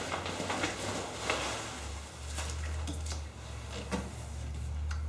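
Rummaging by hand in a shipping box full of packing peanuts, with light rustling and a few faint knocks as paint and chemical cans are lifted out, over a low steady hum.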